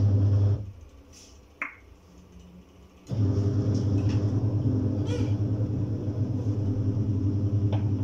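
Twin tub washing machine's wash motor running with a low steady hum, cutting out about half a second in and starting again about three seconds later, as the wash cycle pauses and reverses the agitator. A single sharp click sounds in the pause.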